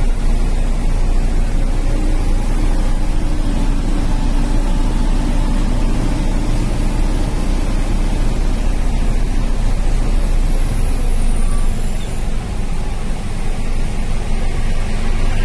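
Truck's diesel engine running steadily under way, with road and wind noise, heard from inside the cab; the level dips briefly about twelve seconds in.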